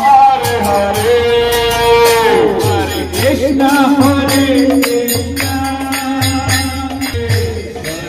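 Music: a held, gliding sung melody over a steady low beat, with jingling percussion.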